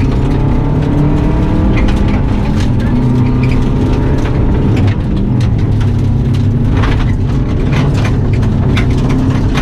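Turbocharged Subaru WRX flat-four rally engine pulling hard inside the caged cabin, revs rising and falling through the corners, with sharp clatters of gravel striking the underbody, more of them near the end.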